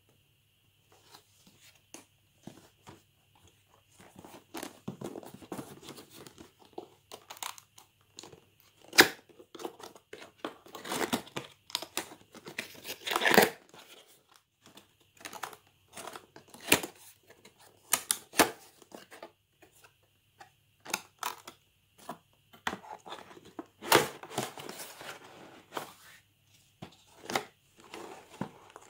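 Cardboard box and plastic blister packaging of a label maker being handled and opened: irregular scraping, tearing and crinkling with sharp snaps and taps. The loudest snaps come about a third of the way in, near the middle and again about four-fifths in.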